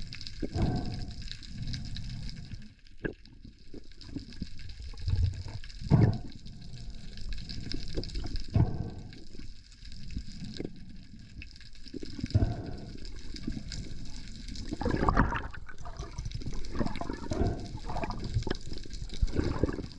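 Sea water sloshing and gurgling around a spearfisher's camera, with irregular low thuds and short knocks; it grows busier in the last few seconds.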